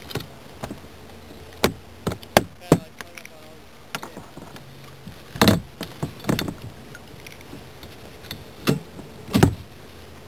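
Irregular sharp knocks and clicks, about ten of them at uneven intervals, from fishing gear and paddle being handled against a kayak's hull.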